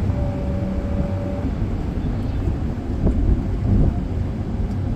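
Road and engine noise inside a moving car's cabin, a steady low rumble, with a faint brief tone near the start.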